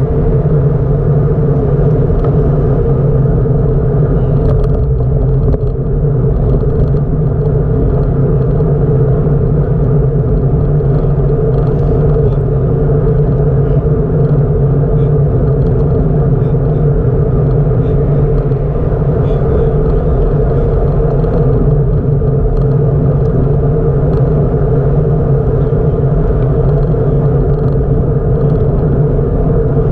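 Loud, steady low rumble of wind and road noise on a camera carried on a moving bicycle, with a constant hum running through it.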